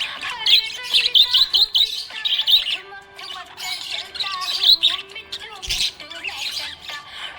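Small pet parrots chirping and warbling in rapid, busy runs of high-pitched notes, with occasional harsher squawks.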